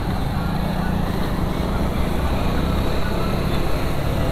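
Motorcycle ridden slowly in traffic: steady engine running under a constant low wind rumble on the microphone.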